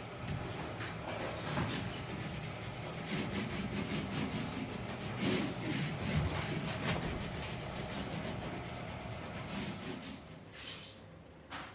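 Wood being worked with a hand tool, with repeated irregular rubbing, scraping strokes. The strokes fade near the end, and two sharp clicks follow.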